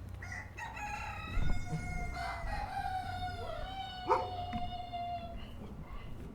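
Rooster crowing: one long, drawn-out crow lasting about five seconds, with a sharp knock about four seconds in.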